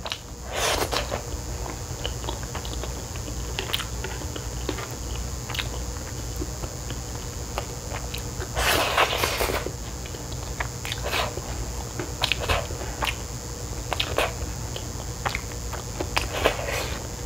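A person slurping saucy chapaguri noodles close to the microphone, twice: once about a second in and a longer slurp about nine seconds in. Short clicks of chewing and chopsticks fill the time between.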